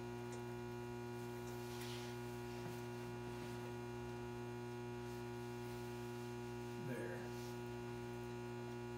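Steady electrical hum made of several constant tones, with a faint brief rustle about two seconds in.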